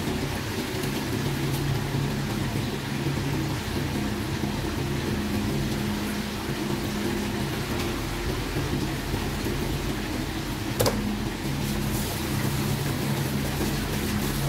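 Tap water running into a plastic basin while hands swish and rub chopped bottle gourd pieces to rinse them, over a steady low hum. A single sharp click about eleven seconds in.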